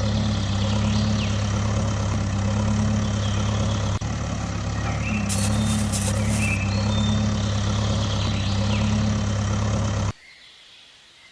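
Heavy truck engine running steadily at idle, with a short hiss of air brakes about five seconds in; the engine sound cuts off abruptly about ten seconds in.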